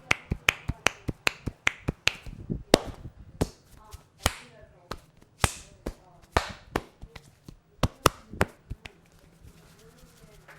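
Sharp percussive snaps and smacks of a barber's hands striking the head and hair during an Indian head massage. They come quickly at first, about five a second. From about two seconds in they turn into slower, louder, irregular slaps with a short hiss after each, fading out near the end.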